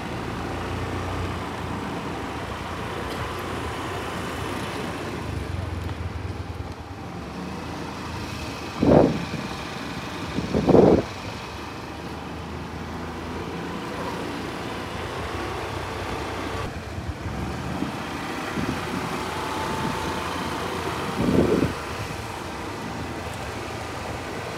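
Steady road and traffic noise from riding a Suzuki scooter. Three short, louder sounds stand out: two close together around the middle and one near the end.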